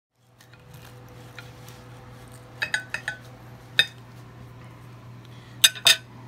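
Kitchen knife clinking and scraping against a ceramic plate while cutting through a toasted club sandwich. A quick cluster of clinks comes around the middle, then one more, then two sharper clinks near the end, over a steady low hum.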